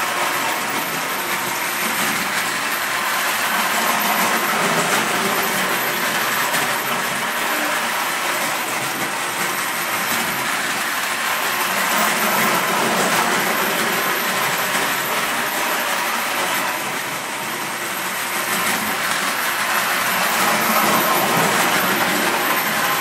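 Distler H0 battery-powered toy train running steadily round the track: the small motor and the wheels make a continuous rattling run over the sectional rails, dipping slightly in level about three quarters of the way through.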